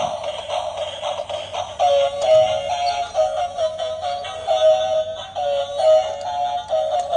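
A simple electronic melody of quick stepping notes, thin with almost no bass, taking over clearly about two seconds in.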